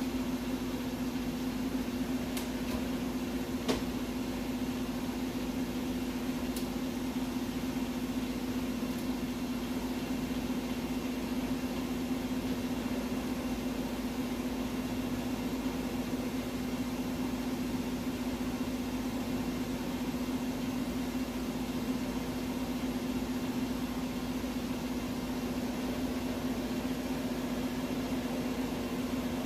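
Large engine lathe running at a very slow spindle speed while twisting a long aluminum extrusion, its motor and gearing giving a steady, even hum. A few faint ticks sound in the first several seconds.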